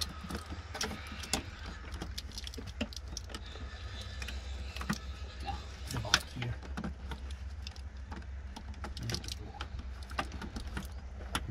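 Metal tools and engine parts clinking and rattling during hands-on work in an engine bay: a run of irregular small clicks and knocks, the sharpest about six seconds in, over a steady low rumble.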